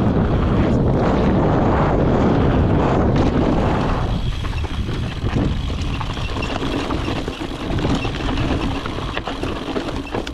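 Mountain bike riding down a dirt trail: a steady rush of tyre noise over dirt and stones with scattered clicks and rattles, and wind on the microphone. Louder for the first few seconds, then easing a little.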